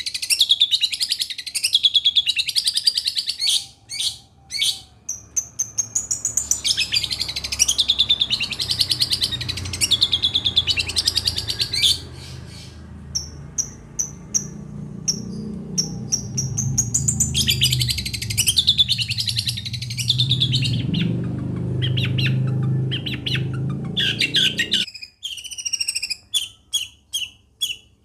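Long-tailed shrike (cendet) singing a fast, varied warbling song in long phrases with short breaks, over a low background rumble in the middle part. Near the end it switches to a string of short, sharp repeated notes, about two a second.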